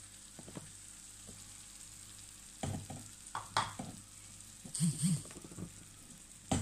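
Sliced zucchini, carrot and broccoli sizzling softly in a frying pan. About two and a half seconds in, a wooden spatula starts stirring and scraping, knocking against the pan several times.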